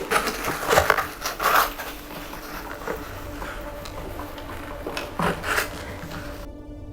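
Plastic animatronic parts being handled and fitted together: a run of knocks and rubbing in the first two seconds, quieter rustling, then a few more knocks about five seconds in as an arm is attached to the figure's torso.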